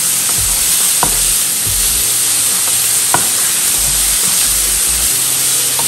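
Finely chopped vegetables sizzling in a little oil in a frying pan as a spatula stirs and scrapes them, with two sharper clicks of the spatula against the pan about one and three seconds in.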